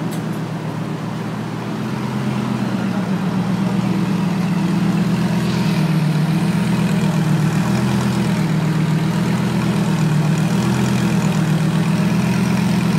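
Red Lamborghini's engine idling steadily, heard at its exhaust pipe; the low, even exhaust note grows louder over the first five or six seconds, then holds.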